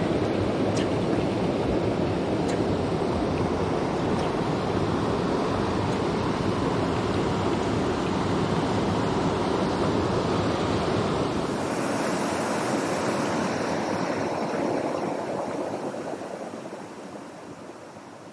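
Rushing water of a small mountain stream, a steady noise without pitch. About two-thirds of the way through, the deep rumble drops away, and the sound fades down near the end.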